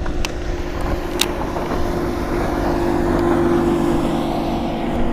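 Outboard motor of a passing bass boat running at speed: a steady drone that grows louder toward the middle and then eases slightly.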